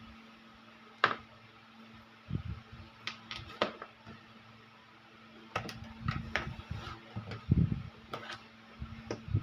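Irregular clicks, taps and low knocks of small parts and hand tools being handled while a cordless microphone is being worked on, over a steady faint hum.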